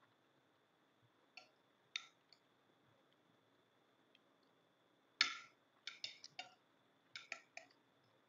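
Eating sounds at a meal: soft clicks of metal spoons against ceramic plates and of chewing, a few scattered at first, then a quicker run of louder clicks from about five seconds in.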